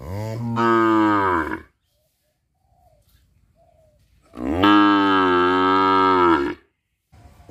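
Cow mooing: one long moo at the start and a second, slightly longer one about four seconds in, with a quiet gap between them and a third moo just beginning at the very end.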